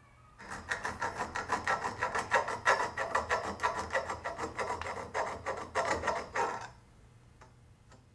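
A hand file scraping back and forth across the tips of the screws that protrude into a bronze bushing, filing them flush so they don't foul the shift rod. The strokes run fast, about three a second, and stop about a second and a half before the end.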